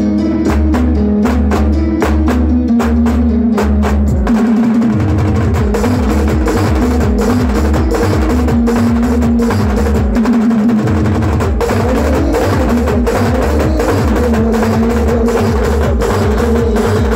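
Village band party playing loud music: a stepping melody over a heavy, steady bass drum beat, with fast stick drumming on hand-held drums that grows busier about four seconds in.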